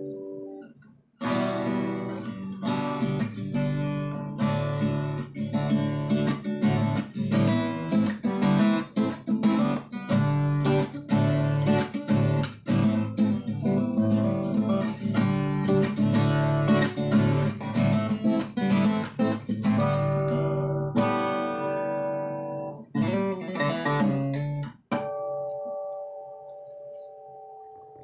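Alvarez 5014 acoustic guitar being played: a fading chord and a short gap give way to about twenty seconds of steadily struck chords. It ends with a brief burst of chords that stops suddenly, and then a last chord left to ring out and fade.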